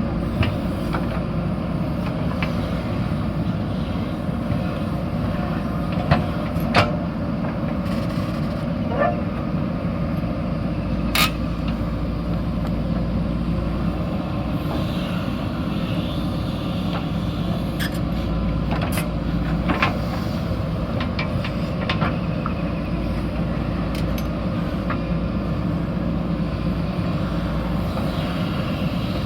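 JCB backhoe loader's diesel engine running steadily under work, with a handful of short sharp clanks from the machine at irregular moments.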